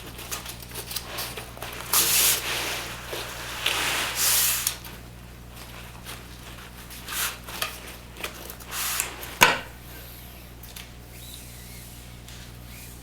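Rails being slid into the ends of a Hunter Douglas Duette honeycomb shade by hand: a few short scraping slides and small clicks, with one sharp knock about nine and a half seconds in, over a faint steady low hum.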